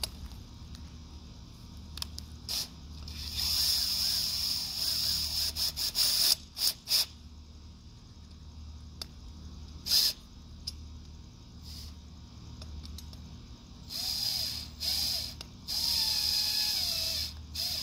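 Ridgid cordless drill run in repeated trigger bursts with an auger bit in its keyless chuck, the hand gripping the chuck so that it ratchets tight on the bit. The bursts last from a moment to about three seconds, with short gaps between them.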